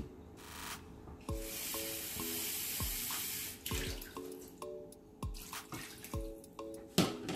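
Kitchen water tap running for about two seconds, filling a cup with water, then a loud splash near the end as the cup of water is poured into the pot of seasoned beef. Light background music with plucked notes plays underneath.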